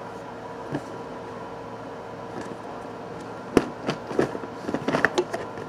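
Steady background hum, with a scatter of short clicks and knocks from about three and a half seconds in as a small gift box is opened to take out a choker and the phone is handled.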